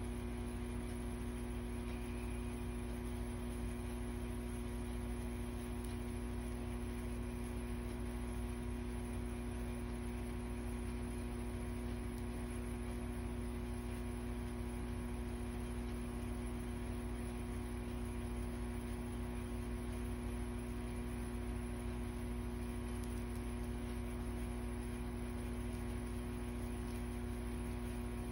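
Steady electrical hum: a low drone with a couple of steady tones above it, unchanging throughout.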